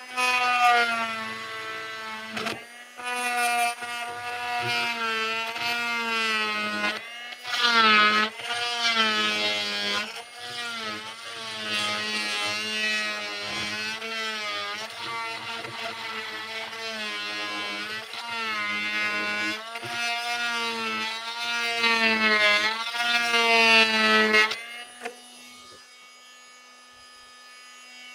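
Oscillating multi-tool cutting into wood, a pitched buzz that wavers up and down as the blade is pushed in and eased off, with a few short breaks. The cutting stops near the end, leaving only a faint steady hum.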